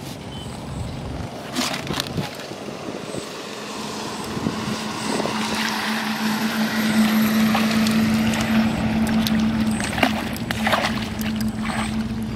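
A motor vehicle driving past, a steady engine hum that grows louder to a peak midway and then fades, with a few sharp knocks near the start and near the end.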